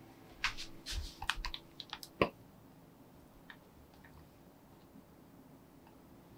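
Light clicks and clinks of glass bowls and kitchen utensils over the first two seconds, ending in one sharp knock, as a glass bowl of melted white chocolate is handled over the glass mixing bowl of batter. After that only faint room tone while the chocolate is scraped in.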